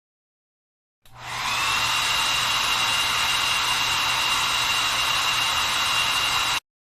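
Hair dryer switched on about a second in, spinning up within half a second to a steady blowing hiss with a high whine and a low hum, then switched off suddenly near the end.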